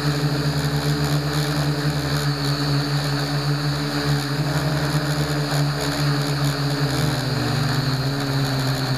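Blade mQX quadcopter's motors and propellers running steadily, picked up by the camera mounted on the drone itself: a low buzz with a thin high whine. The pitch dips slightly about seven seconds in.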